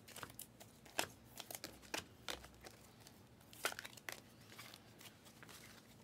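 Glossy trading cards being flipped through by hand in a stack: faint, irregular clicks and slides of card on card, the strongest about a second in and a little before four seconds.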